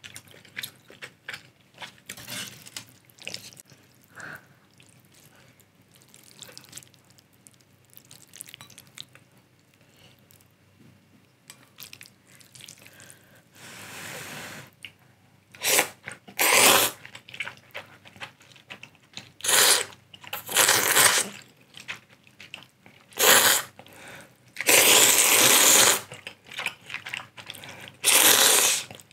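Close-miked eating of spicy instant ramen: quiet chewing and small mouth clicks at first, a soft blow to cool a lifted clump of noodles about halfway in, then a series of loud noodle slurps, the longest lasting over a second near the end.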